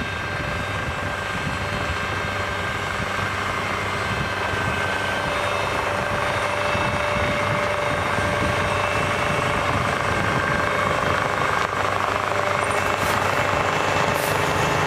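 Large snow-removal vehicle's engine running steadily, a heavy mechanical drone with a high whine over it, slowly getting a little louder.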